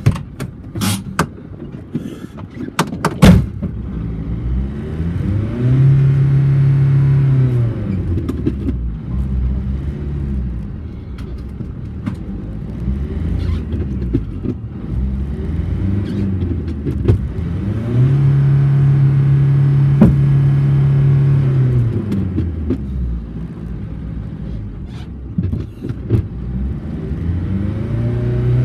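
A vehicle engine revved up, held high for a few seconds and let back down, twice, with a third rise starting near the end. A few sharp knocks in the first few seconds.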